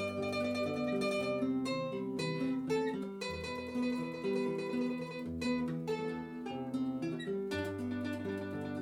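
Instrumental music on plucked strings, guitar-like, with melody notes over a moving bass line and no singing.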